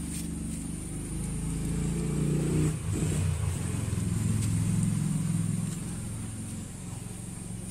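A motor engine running, its low hum shifting down in pitch about three seconds in and growing louder through the middle before easing off.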